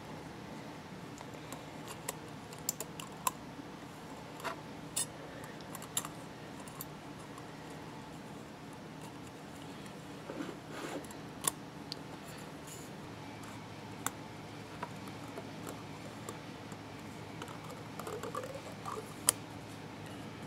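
Thin steel oil-ring rails and expander clicking and scraping against a Continental F245 piston as the three-piece oil ring is worked into its groove by hand: scattered small clicks and ticks over a faint steady hum, the sharpest one near the end.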